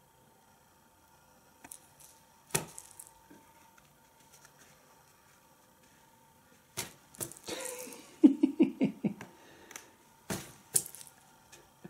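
Scattered sharp taps and rustles of a cat swatting the nylon roof of an IKEA BUSO kids' pop-up play tent from inside, knocking small pom-pom balls about on top. There is a quick flurry of taps and fabric rustling about seven to nine seconds in.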